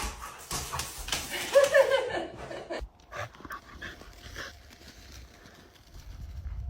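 A dog making short, high, wavering vocal sounds about a second and a half in, then quieter.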